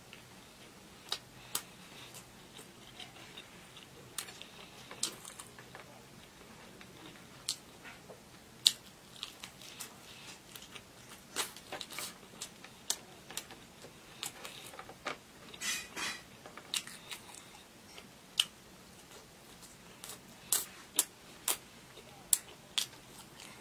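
Close-miked chewing and biting of a burger and fried food, with irregular sharp crunches and wet mouth clicks.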